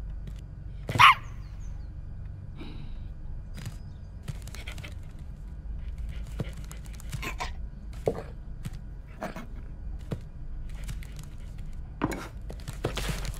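A dog gives one loud, short bark about a second in, followed by scattered fainter short sounds over a steady low hum.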